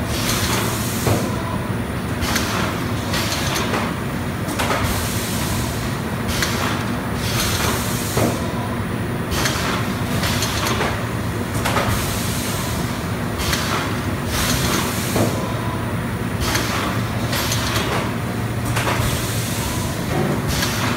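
LEONHARDT AG2 filling machine running as it doses strawberry compote into plastic cups: a steady low mechanical hum, with a short hiss of compressed air about once a second.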